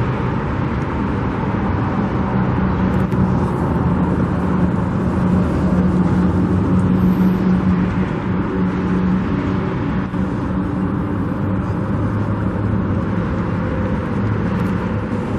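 Road traffic: a motor vehicle engine running close by over a steady wash of road noise, its low hum strongest in the middle of the stretch.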